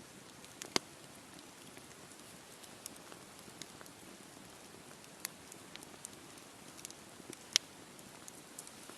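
Wood campfire burning: a low, steady hiss with scattered crackles and sharp pops, two of them loud, one about a second in and one about three-quarters of the way through.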